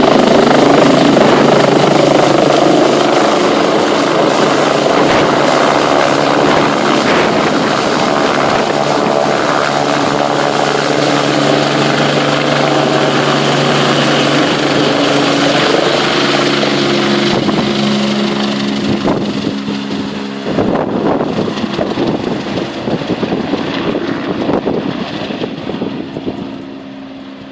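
Rescue helicopter flying away, its rotor and turbine noise loud at first and fading steadily as it departs.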